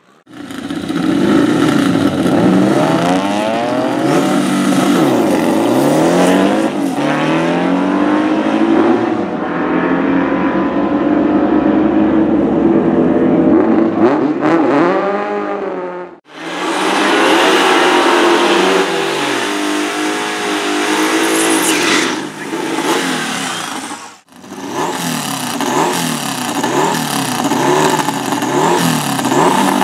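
Turbocharged VW Beetle drag car's 400 hp flat-four accelerating hard, its pitch climbing and dropping repeatedly as it goes up through the gears. Near the end it revs in quick repeated blips.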